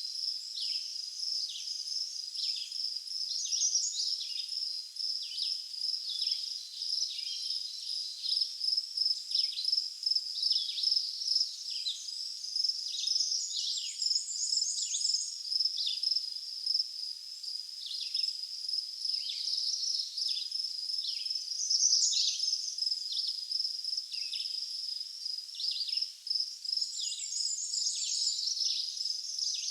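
Wild birds calling over a steady, high insect trill: many short, quick chirps that drop in pitch, one or two a second, with a brief higher twittering phrase twice.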